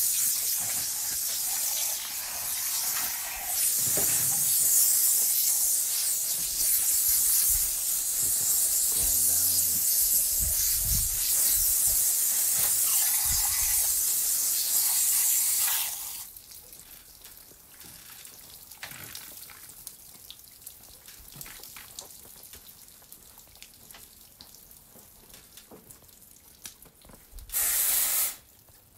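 Water spraying hard from a hose nozzle during the clean-off. It hisses steadily, cuts off about sixteen seconds in, and comes back in one short burst near the end.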